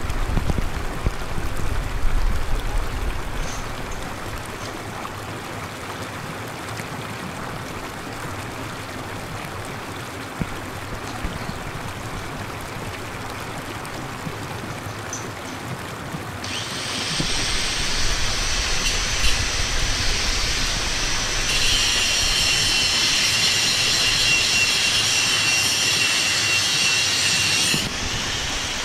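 Steady rushing hiss of water spraying and falling from a scaffold-frame artificial rain shelter, with gusts of low rumble. About halfway through a shrill, steady buzz joins high above it and grows louder, stopping abruptly near the end.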